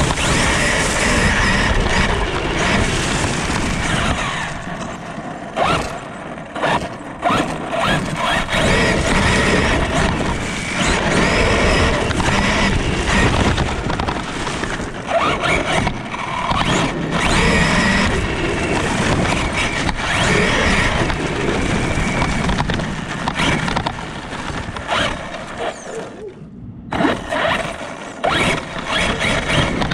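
Traxxas Sledge RC monster truck on a 4S battery driving across a lawn while towing a push lawnmower, with motor and drivetrain whine, the mower's engine running, and grass and leaves thrown up. The noise surges and eases as the truck speeds up and slows, with a brief drop near the end.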